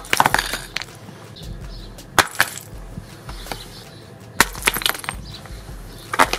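A block of ice with a flashlight frozen inside is smashed onto asphalt and shatters. There are three hard crashes about two seconds apart, each followed by chunks skittering and clinking, and a smaller hit near the end.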